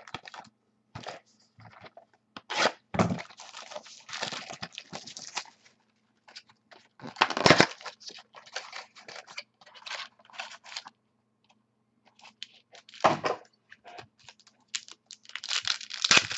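Trading card foil packs being torn open and the cards handled and slid over each other: irregular rips and rustles, the loudest about seven and thirteen seconds in, with a busy stretch near the end.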